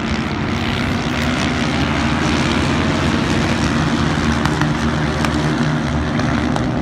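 A pack of 451–750cc four-stroke racing quad bikes running flat out, their engines blending into one steady drone.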